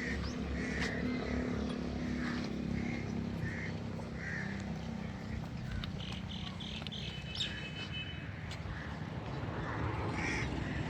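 Birds chirping over and over, about once or twice a second, with a brief higher call about two-thirds of the way through, over a steady low mechanical hum.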